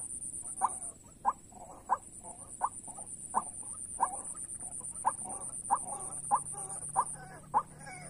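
White-breasted waterhen (ruak-ruak) call played from an MP3 lure: short, sharp notes repeated steadily, about three every two seconds, over a steady high-pitched buzz.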